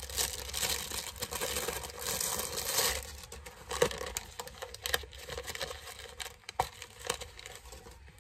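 Crinkly packaging being handled as a new wallet is unwrapped. The rustling is dense for the first three seconds, then thins to scattered rustles and light clicks.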